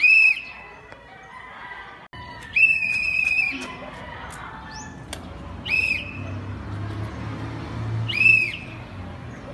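Referee's whistle blown in four shrill blasts: a short one at the start, a longer one about two and a half seconds in, then two more short ones.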